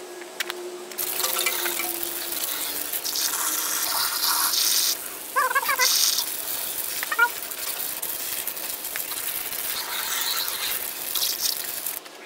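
Jet of water from a hose spraying onto a soapy car wheel and tyre, rinsing off the suds: a steady hiss and splatter that comes and goes as the spray moves. A few short chirps come through about five and seven seconds in.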